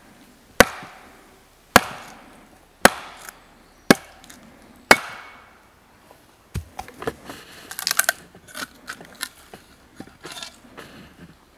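Wooden mallet striking the back of a steel froe five times, about once a second, driving the blade into a half round of green birch. Then a run of smaller cracks and creaks as the wood splits open along the grain under the froe's levering.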